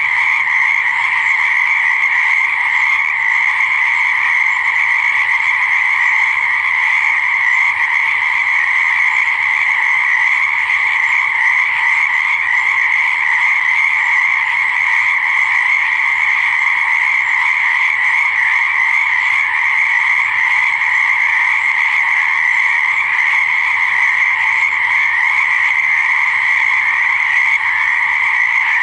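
A chorus of frogs calling continuously, a dense unbroken din with no pauses.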